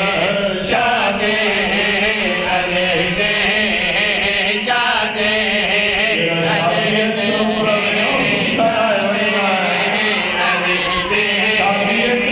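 Several men's voices chanting a sung devotional refrain together into microphones. The notes are long and wavering, with vibrato.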